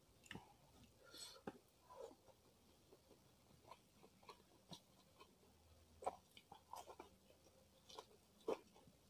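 Faint, close-miked chewing and mouth sounds: irregular soft clicks and smacks, with a sharper click about six seconds in and another near the end.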